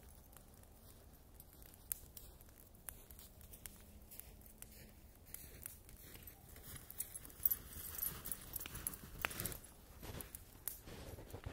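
Wood bonfire crackling with scattered sharp pops. From about five seconds in, louder rustling and scuffing with many crisp clicks joins it.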